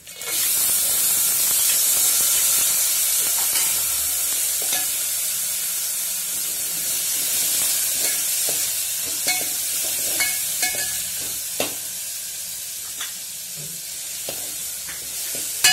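Soaked split chana dal frying in hot oil and spices in a metal pot: a loud sizzle that starts suddenly as the wet lentils hit the oil and slowly dies down. A steel spoon scrapes and clicks against the pot as the dal is stirred.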